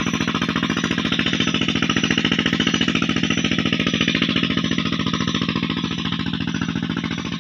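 Petter diesel engine driving a tubewell pump, running steadily with a fast, even beat.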